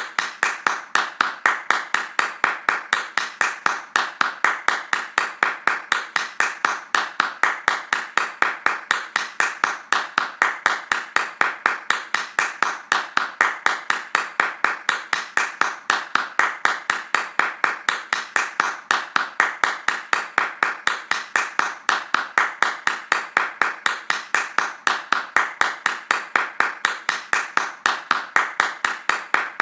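Hand clapping, fast and steady at about four claps a second, keeping an even rhythm without a break.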